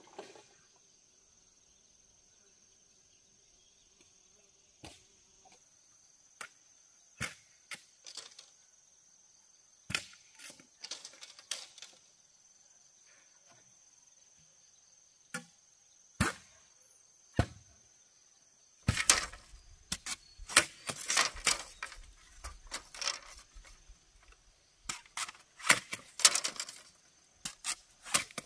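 Sharp knocks and cracks of bamboo being chopped and split: single strikes a second or more apart at first, then a dense run of rapid strikes from about two-thirds of the way through. A steady high drone of insects runs behind the first part.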